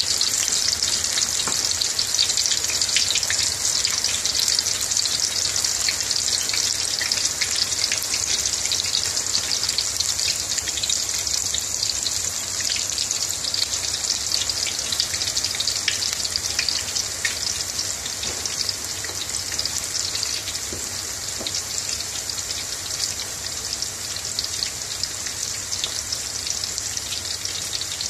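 Onion bhajis, balls of onion in gram-flour batter, deep-frying in hot oil in a deep fryer: a steady, dense sizzle full of small crackling pops. It eases slightly over the last several seconds.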